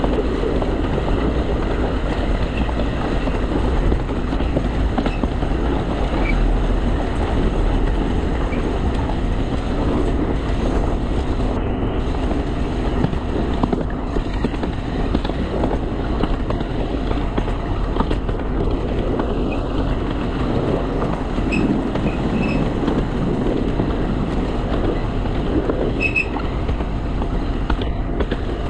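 Narrow-gauge Alishan Forest Railway train running steadily along the track, a continuous rumble of wheels on rail and running gear. A few faint short high squeaks come in the second half.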